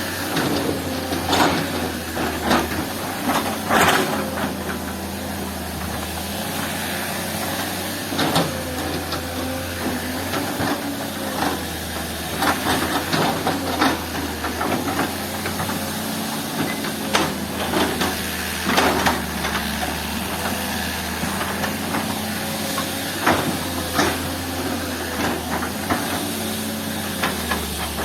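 Diesel engine of a heavy earthmoving machine running steadily under work. Irregular sharp clanks and knocks of rock and metal sound over it every few seconds.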